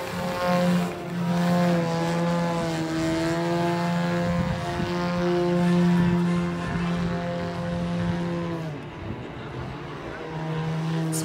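DA 200 twin-cylinder two-stroke petrol engine of a large radio-controlled Pitts Challenger II biplane, running at steady high power with the propeller, its note dipping slightly a few seconds in. About nine seconds in the throttle comes off and the note falls away, then picks up again near the end.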